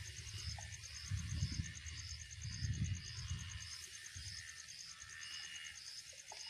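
Insects chirring in a steady, rapid, high-pitched pulse, several pulses a second, with low rumbles about a second in and again around three seconds.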